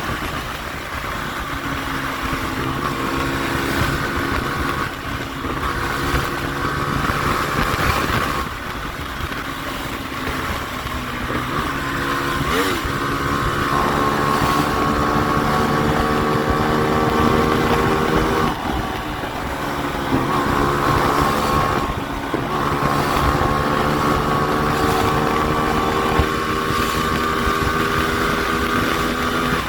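Hyosung Comet GT250 motorcycle's V-twin engine running under way, its pitch climbing and then dropping several times as it shifts gears. Wind noise rushes over the microphone.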